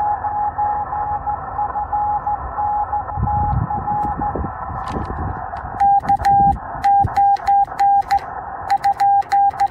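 Morse code through a Yaesu FT-891 transceiver's speaker: first a weaker station's CW tone keyed in and out of band hiss, then, from about six seconds in, the louder sidetone of the operator sending on a straight key, with a sharp click as the key makes and breaks each dit and dah.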